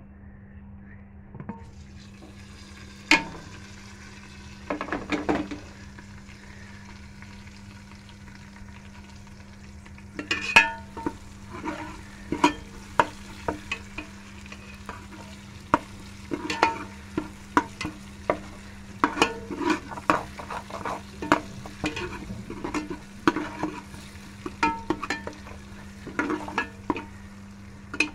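Steel ladle scraping and knocking against an aluminium pressure-cooker pot as masala is stirred, with frequent sharp clicks from about ten seconds in. Underneath, the masala sizzles faintly in oil over a steady low hum. A few louder knocks come in the first few seconds.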